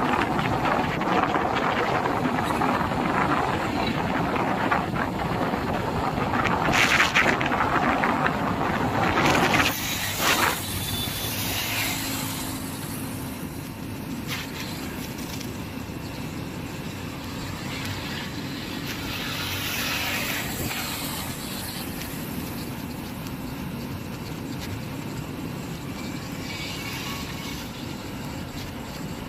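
Wind and road noise from a moving vehicle travelling along a highway, loud and rushing for the first ten seconds, with a brief surge about seven seconds in. It then drops to a quieter steady rush with a couple of gentle swells.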